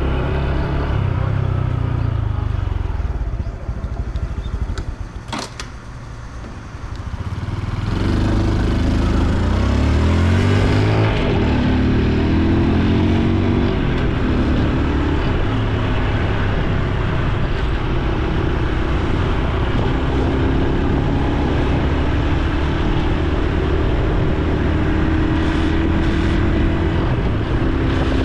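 Honda Super Cub C125's air-cooled single-cylinder engine and exhaust on the move. About three seconds in it drops to a low, quieter tone as the bike slows, with a single click around five seconds. It then pulls away, rising in pitch in steps, and settles into a steady cruise.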